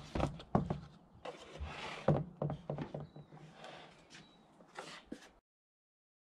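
Hands working the plastic airbox and air filter of a Mercedes Sprinter: a string of light knocks and clicks, with rustling/wiping a little over a second in, then the sound cuts off abruptly about five and a half seconds in.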